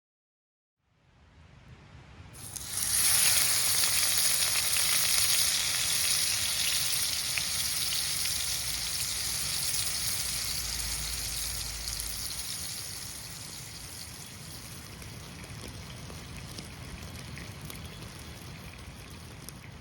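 Loud sizzling hiss that comes in about three seconds in and slowly dies down, with a low rumble underneath.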